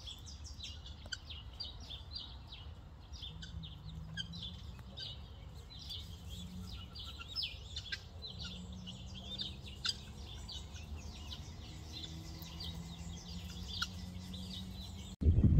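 Helmeted guineafowl keets peeping: many short, high chirps in quick succession over a low background rumble. Music cuts in abruptly just before the end.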